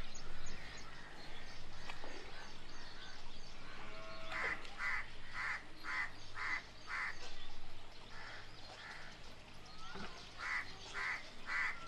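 A bird giving harsh, evenly spaced calls, about two a second, in three runs: six calls starting about four seconds in, two fainter ones a little later, and four more near the end, over a steady low outdoor hum.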